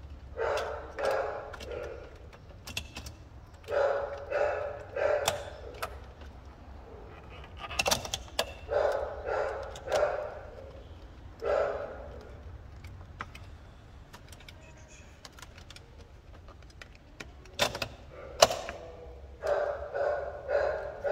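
Metal busbars clinking and jangling as they are slid down over the threaded stud terminals of lithium battery cells, in bunches of rattles about a second long, with a few sharp knocks. A steady low hum runs underneath.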